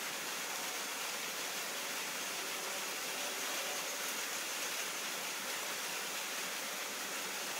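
A steady, even hiss of background room noise, with no distinct events.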